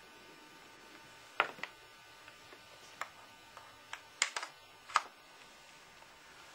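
Scattered light clicks and taps, about seven in all between roughly one and a half and five seconds in, from a USB plug being pushed into a laptop's port and its cable being handled. The two clicks a little past four seconds are the loudest.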